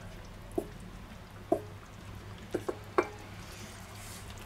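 Wooden spatula knocking and scraping against a stainless steel bowl as sliced mushrooms are pushed out into a pot of stew: about five light, separate knocks over a few seconds.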